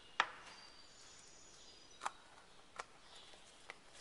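Four sharp clicks, the first, about a quarter-second in, the loudest: small plastic caps and lids being snapped shut on containers of bait colour and glitter.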